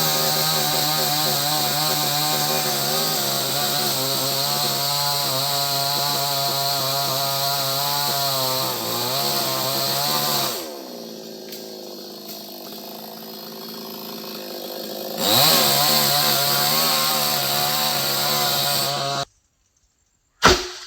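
Chainsaw running at high speed with a wavering pitch, dropping to a much quieter idle about ten seconds in and revving up again some five seconds later, then cutting off suddenly. A sharp knock follows near the end.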